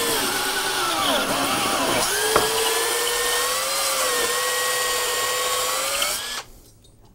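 Cordless drill spinning a hone inside the cathode tube of an ozone reaction chamber to hone it out. The motor whine sags in pitch during the first two seconds as the hone drags in the tube, with a sharp click about two and a half seconds in, then runs steady and stops about six seconds in.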